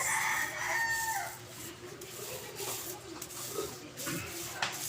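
A rooster crowing once: one held call of about a second and a half at the start that drops in pitch as it ends. A couple of light knocks follow near the end.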